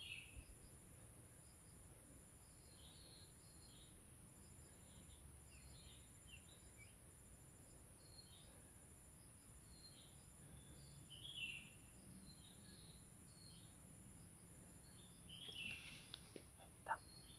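Faint forest ambience: scattered short bird chirps over a steady high insect buzz, with a few sharp clicks near the end.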